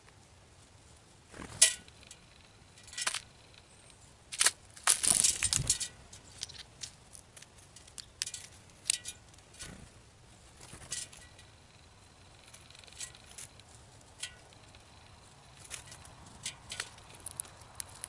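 Scattered sharp clicks and taps with rustling, irregular and uneven in strength. The loudest burst comes about five seconds in.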